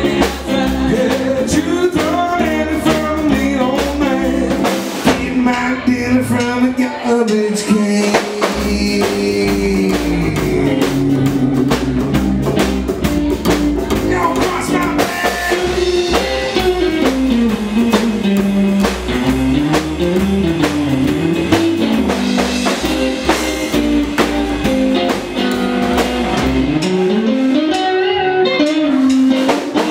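Live rock-and-roll band playing: upright double bass, electric guitar and drum kit keeping a steady beat, with a lead melody line that bends up and down.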